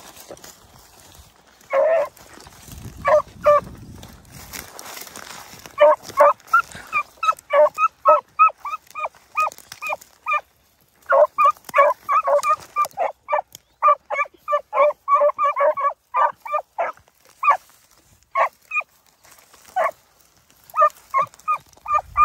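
Beagles barking on a rabbit track: quick, short, high yelps several a second, in long runs with brief pauses, a trailing pack of hounds giving voice on scent.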